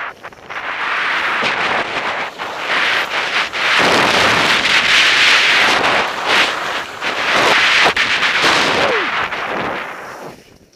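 Skis scraping and hissing over hard-packed piste snow on a fast downhill run, mixed with wind rushing over the camera microphone. The noise ends abruptly near the end as the skier skids to a stop, throwing up snow.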